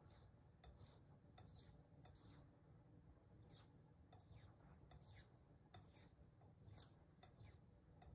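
Faint short scraping strokes of a Santoku knife's steel edge on a wet 1-micron ceramic sharpening stone, about one or two a second at an uneven pace, as the tip is worked at the final polishing stage.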